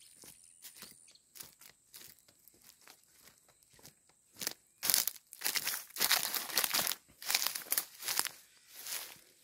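Footsteps on dry ground, then from about five seconds in, loud rustling and crunching of leaves and branches as someone pushes through brush.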